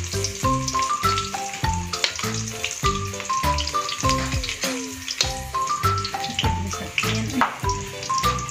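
Background music with a steady beat and a melody, over the sizzle of eggplant slices frying in oil in a wok.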